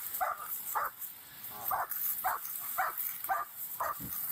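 Police K9 dog barking repeatedly, about two barks a second.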